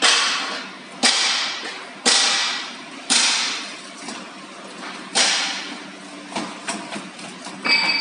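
A series of sharp knocks about a second apart, each dying away over most of a second, then a few lighter clicks near the end.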